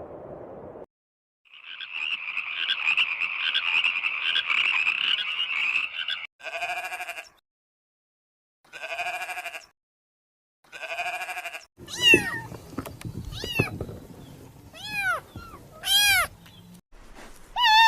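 A sequence of animal calls: a long, rasping call of several seconds, then three short pitched calls a couple of seconds apart, then a quick run of short cries that rise and fall in pitch.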